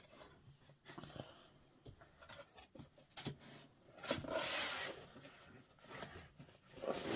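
Kinetic sand being scraped, pressed and patted by hand, with scattered small taps and a longer rasping scrape about four seconds in.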